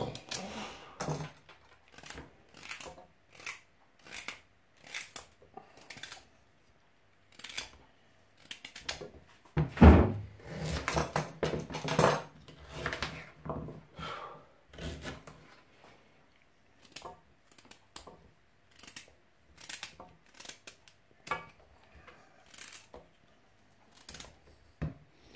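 Knife slicing through raw carrot and parsnip held in the hand: a string of short, crisp snaps, about one a second, as chunks are cut off and drop into an aluminium saucepan of vegetables. A louder knock and rattle comes about ten seconds in.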